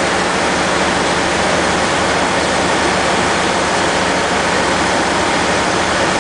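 Steady, loud rig machinery noise: an even rushing hiss with a low engine hum running under it.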